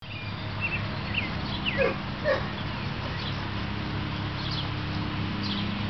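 Young dog yipping and whining in short high cries that drop in pitch, the two loudest yelps coming about two seconds in, over a steady low hum.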